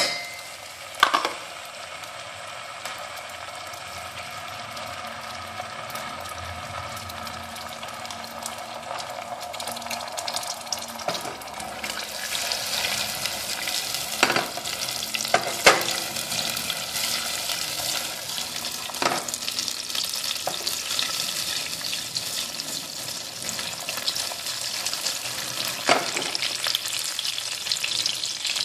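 Caramel syrup with butter melting into it, bubbling and sizzling in a stainless steel saucepan over a gas flame; the sizzle grows louder and brighter about halfway through. A few sharp clinks come from a metal fork knocking against the pan.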